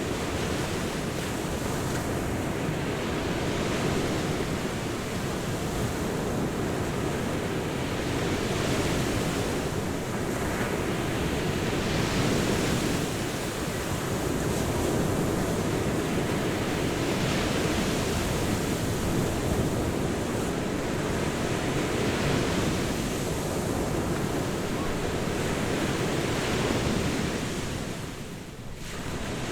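Ocean surf on a beach: waves breaking continuously, swelling and easing every few seconds, with a short lull shortly before the end.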